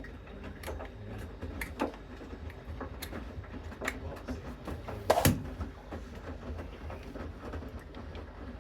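Bosch Series 6 washing machine running its main wash, a steady low rumble from the turning drum. Scattered clicks and knocks sound over it, the loudest about five seconds in.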